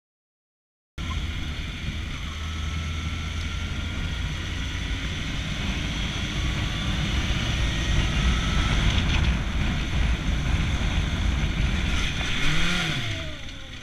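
Motorcycle riding along a street, its engine's low rumble under heavy wind noise on the microphone, starting abruptly about a second in. Near the end comes a brief rising-and-falling shout.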